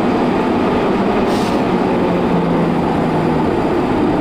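Inside a 1947 Bern Standard series tram on the move: steady rumble of wheels and running gear, with a low hum that drops slightly in pitch during the middle and a brief hiss just over a second in.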